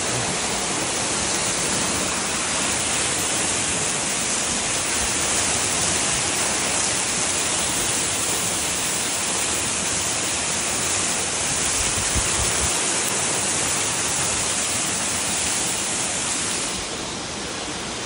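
Waterfall spilling down a steep rock face onto boulders: a steady, loud rushing hiss of falling water, dropping a little near the end.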